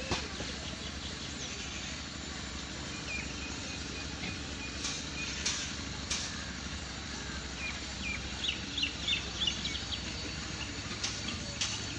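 Birds chirping in short high calls, a few about a third of the way in and a quicker cluster past the middle, over a steady low rumble.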